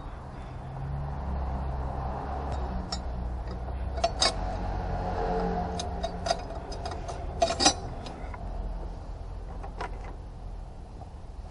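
Metal pipe being worked loose and pulled from the engine bay, with several sharp metallic clinks and knocks, the loudest about four and seven and a half seconds in, over a steady low hum.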